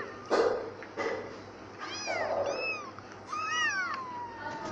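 Kittens mewing in short, high-pitched cries while play-fighting, several in the second half and one longer mew that falls in pitch near the end. A short burst of scuffling noise comes just after the start.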